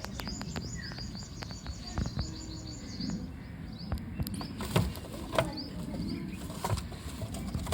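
Small birds chirping in a quick run of short, high notes for the first few seconds, with scattered sharp clicks and knocks throughout, the loudest a little past the middle.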